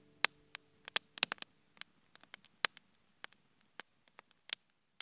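Wood fire crackling: burning logs giving off sharp, irregular snaps and pops, several a second, some much louder than others.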